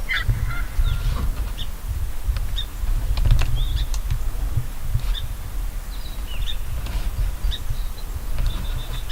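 Small birds chirping and calling in the spring woods, short scattered notes, over a steady low rumble.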